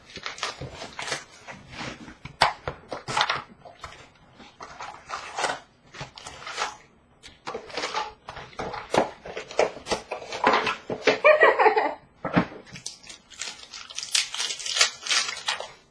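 Trading-card packs and a cardboard hobby box being handled: irregular rustling and crackling of foil wrappers and cardboard, with a brief squeaky sound about eleven seconds in and a dense crinkling near the end as a pack is torn open.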